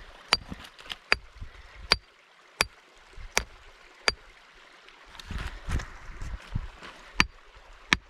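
Steel rock pick striking a quartz boulder: sharp metallic cracks with a brief ring, six blows about every 0.7 s, a pause of about three seconds, then two more near the end. The blows make no headway against the boulder.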